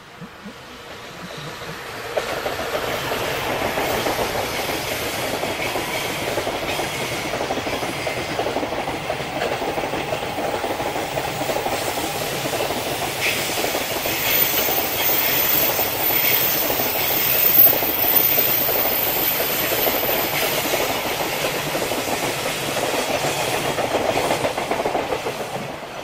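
Container freight train hauled by an EF210 electric locomotive passing close by, the wagons' wheels clattering over the rail joints. The sound builds about two seconds in, stays steady while the wagons roll past, and falls away near the end as the last wagon passes.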